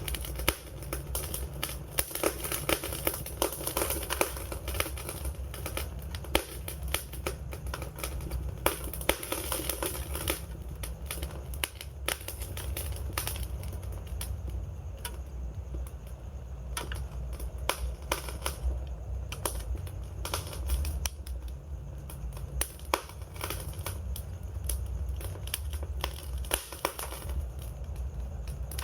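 Wood fire crackling: a dense run of irregular pops and snaps over a steady low rumble. The snapping is thickest in the first ten seconds and sparser after that.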